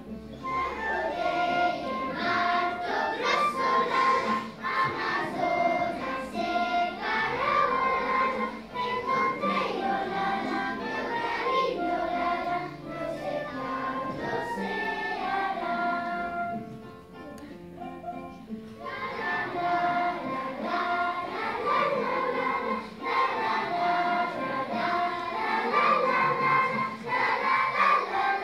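Children's choir singing a song in Portuguese together, accompanied by acoustic guitar and flute. The singing drops to a quieter passage about two-thirds of the way through, then comes back at full strength.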